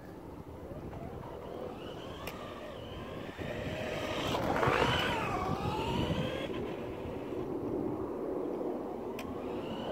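Radio-controlled car driving on asphalt, its motor whine rising and falling, loudest about halfway through.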